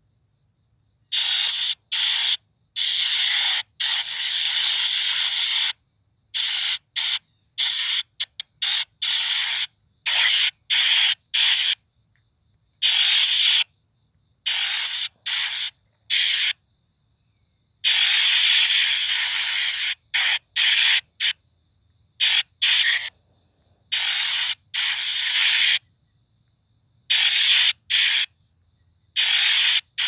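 Shadows Box spirit box app playing white noise that cuts in and out abruptly in irregular bursts, from a fraction of a second to about two seconds long, with near-silent gaps between.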